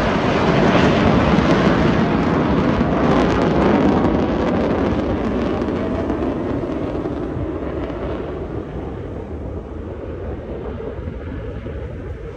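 Jet noise from an F-35B fighter flying slowly in hover mode, its engine and lift fan giving a loud, rough, steady rumble that slowly fades over the second half as the jet moves away.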